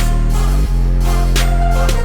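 Background music: a beat with deep, sustained bass notes that slide down in pitch, and regular drum hits.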